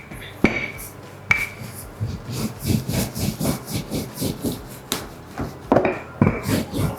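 Rolling pin rolling out noodle dough on a floured board: quick back-and-forth rubbing strokes, with a few sharp knocks of the pin in the first second and again about five seconds in.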